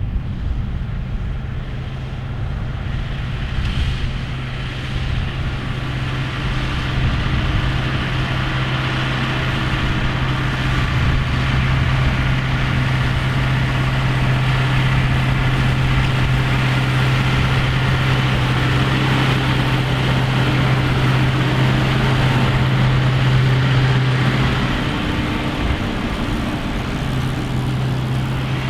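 Tractor engine running at a steady speed, its note dropping briefly near the end before picking up again.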